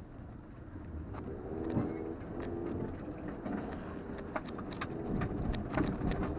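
Toyota RAV4 heard from inside the cabin while driving over a rough sandy dirt track: a steady low rumble of engine and tyres, with frequent sharp knocks and rattles from about a second in as the car jolts over bumps.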